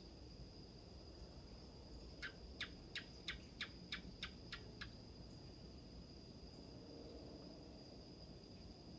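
Crickets trilling steadily at a high pitch. Partway through, a run of about nine sharp, evenly spaced chirps comes at roughly three a second.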